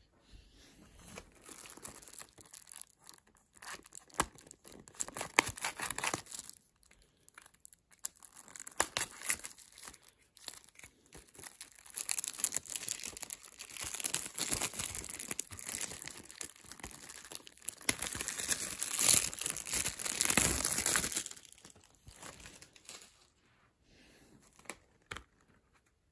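Plastic shrink-wrap being torn and peeled off a Blu-ray case, crinkling in irregular bursts with sharp clicks. It is loudest about three-quarters of the way through and dies down near the end.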